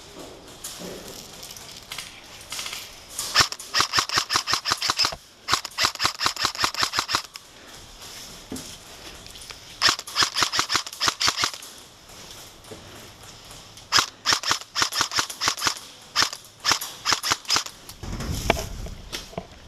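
Airsoft guns firing in rapid full-auto bursts: about five long strings of fast, evenly spaced cracks with short pauses between, and a low rumble near the end.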